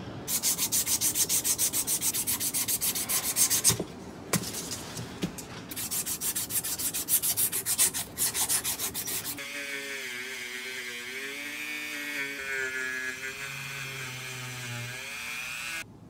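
Sandpaper strip pulled rapidly back and forth, shoe-shine style, around the steel head of a hammer held in a vise: quick even rubbing strokes, about five a second, in two runs with a short break between them. In the second half this gives way to a steadier sound with wavering tones that cuts off suddenly near the end.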